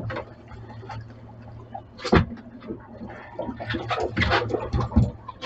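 Steady low engine hum under irregular knocks, rustling and scraping, with one sharp knock about two seconds in.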